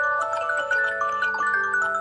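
Samsung Galaxy phone's Clock alert tone playing: a quick, busy melody of bell-like mallet notes, several a second, each ringing into the next.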